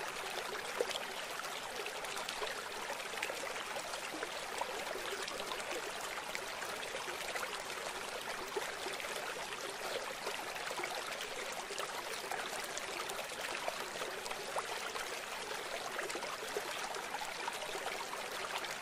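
Shallow water trickling and flowing: a steady, even hiss with faint small crackles.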